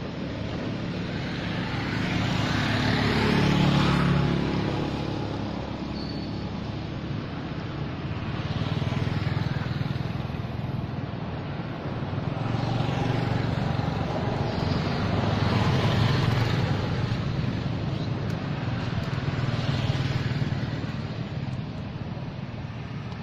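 Road traffic: vehicles passing one after another, the noise swelling and fading about four times over a steady low hum.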